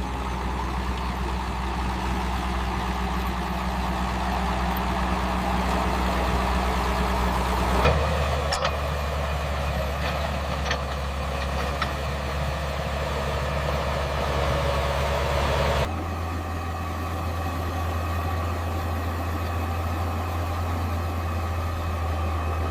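Heavy construction machinery's diesel engine running steadily, its low hum changing abruptly twice, about 8 and 16 seconds in.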